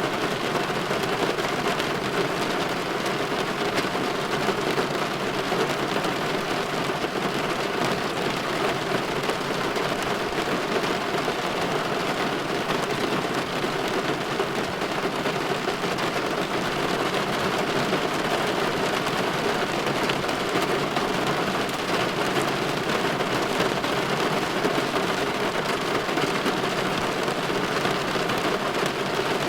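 Light rain falling steadily on a window.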